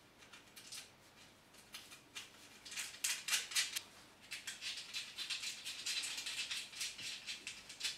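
Light, irregular metal clicks and rattles of a steel cross brace, bolts, washers and nuts being handled and fitted by hand to a steel stand leg, busier in the second half.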